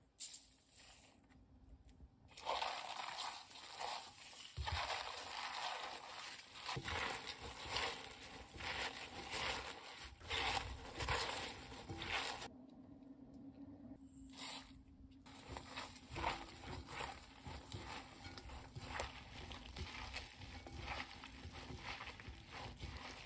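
Gloved hands tossing and squeezing crisp bomdong (spring cabbage) leaves with chili powder and seasoning in a glass bowl: a crinkly rustle and crackle of leaves and gloves. It starts about two seconds in and breaks off briefly a little past halfway.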